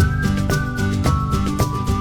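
Background music with a steady, quick beat and a bright melody line.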